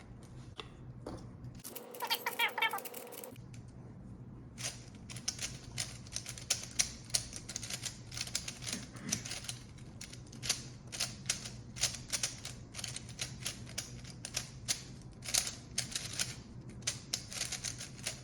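Rapid plastic clicking and clacking of a Rubik's-type puzzle cube being turned by hand, its layers snapping round several times a second, starting about four seconds in. A short pitched sound comes about two seconds in.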